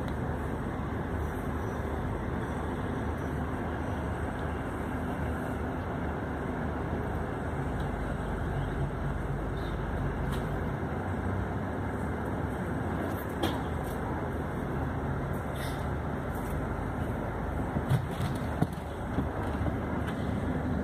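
Steady low rumble of a long-distance coach's diesel engine, heard inside the passenger cabin, with a few short clicks in the second half.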